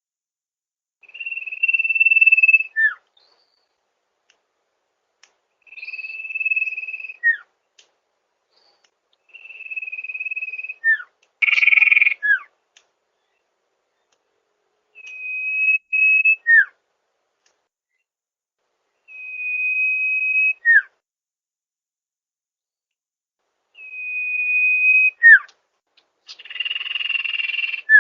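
Sirtu bird song, as used for masteran: a phrase of one long steady whistle that grows louder, ending in a quick downward note, repeated seven times about every four seconds. Two of the phrases, about twelve seconds in and near the end, come out rougher and noisier.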